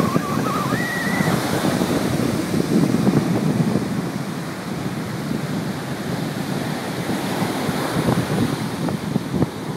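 Sea surf breaking and washing up a sandy beach: a continuous rush of waves that swells and eases, with wind buffeting the microphone.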